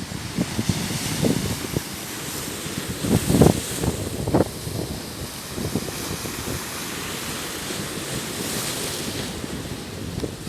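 Sea waves washing on the shore, with a swell of hiss about eight seconds in, and gusts of wind buffeting the microphone, strongest around the middle.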